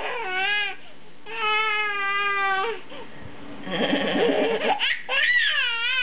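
Toddler laughing with high-pitched squeals, one held for over a second, broken by a short harsh, rasping burst about four seconds in.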